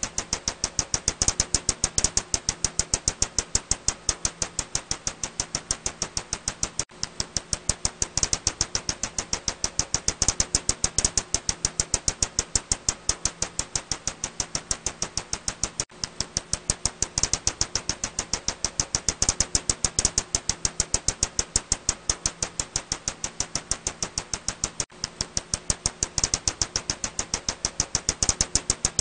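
Ussuri bat echolocation calls, made audible as from a bat detector: a rapid, even train of dry clicks, about five a second. A faint steady hum sits underneath, and the train breaks off briefly about every nine seconds.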